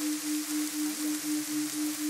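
A steady tone pulsing on and off about four times a second, a 4 Hz theta isochronic tone, over the hiss of a rain recording.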